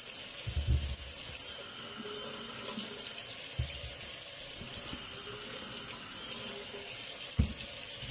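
Kitchen tap running into a sink as potatoes are rinsed under the water, with a few dull knocks of the potatoes in the sink.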